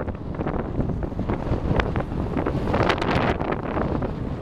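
Wind buffeting the microphone in a canoe on a choppy lake, with short splashes of water.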